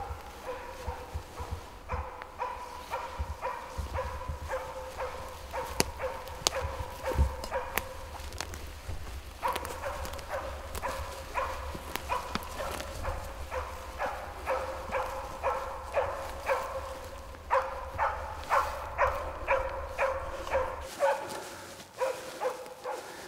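Moose-hunting dog barking, a steady run of short barks about two a second, as it holds a moose at bay. Wind rumble on the microphone lies under most of it and stops near the end.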